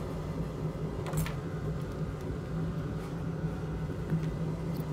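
A steady low machine hum, with a light click about a second in and a few fainter ticks later.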